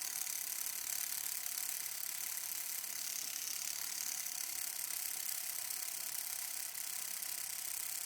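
Homemade tattoo machine, built from tape, a mechanical pencil and a guitar-string needle, buzzing steadily as it runs.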